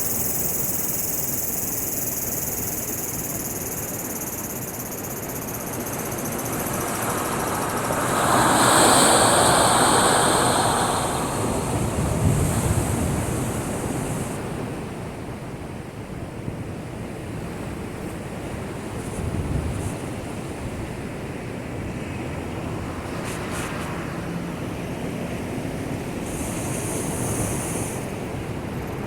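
Heavy typhoon swell crashing against a breakwater: a steady rush of surf, with a big wave surge about nine seconds in and low booming impacts soon after and again around twenty seconds in. The sea is raised by the approaching typhoon rather than by local wind.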